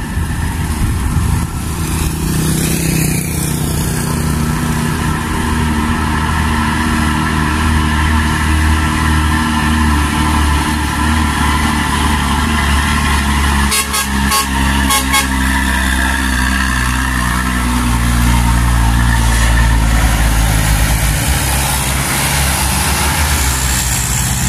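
Heavy diesel dump trucks, one a Hino, running loudly under load as they climb past at low speed, with a motorcycle going by early on. A quick run of short sharp sounds comes about halfway through.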